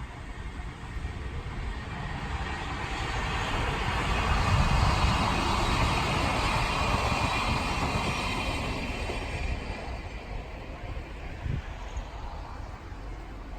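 DE10 diesel-hydraulic locomotive and its old-type passenger coaches passing by on the rails, a low rumble with wheel noise that swells to a peak about five seconds in and then fades away.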